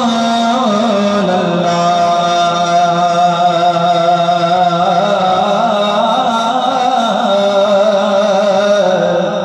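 A man's solo voice chanting a naat into a microphone, drawing out long held notes that waver and slide in pitch.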